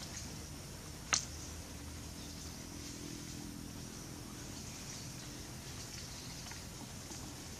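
Quiet outdoor forest ambience: a steady faint high hiss over a low rumble, broken once by a single sharp click about a second in.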